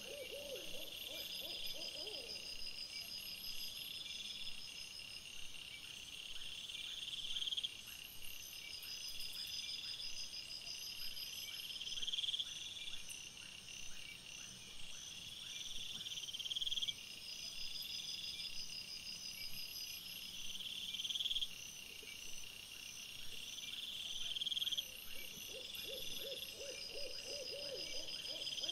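Night chorus of singing insects: high, pulsing chirp trains that swell and cut off abruptly about every four seconds. A quick run of lower, pulsed calls sounds at the very start and again near the end.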